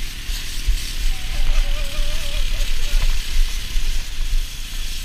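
Wind buffeting the microphone over the hiss and scrape of plastic sleds sliding across patchy snow and grass while towed behind an ATV. A short wavering tone comes in about a second in and lasts about a second and a half.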